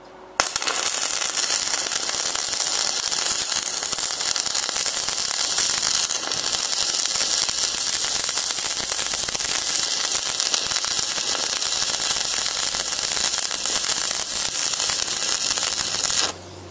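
Stick-welding arc from a basic (7018-type) electrode, struck about half a second in and burning with a steady crackling sizzle for about sixteen seconds before it is broken off suddenly. The inverter's arc force is set low, at 1 to 2.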